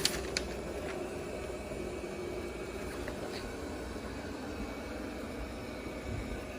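Eufy RoboVac 15C MAX robot vacuum running and cleaning the floor, a steady whirring hum of its suction fan and brushes, with a couple of light clicks near the start.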